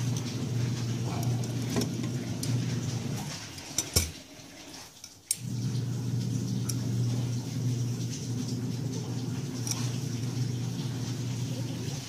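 Light clicks and taps of a phone's small charging board being handled and clamped into a PCB holder, over a steady low hum. A sharp knock comes about four seconds in, then the hum drops out for about a second and a half before resuming.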